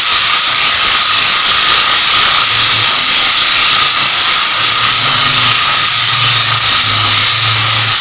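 Ginger-garlic paste and sliced onions sizzling loudly and steadily in hot oil in a deep pan as a spatula stirs them: the paste is being fried until its raw smell cooks off.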